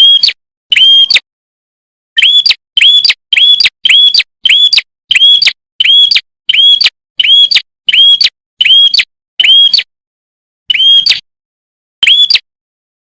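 A prenjak (red-headed prinia-type songbird) repeating a short, sharp chip note, about two a second in a long even series, with a couple of lone notes before and after the run.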